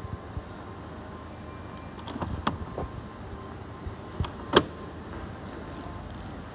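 Plastic detergent dispenser drawer of an LG washer-dryer sliding out with a short rattle and clicks, then a sharp knock, the loudest sound, about four and a half seconds in.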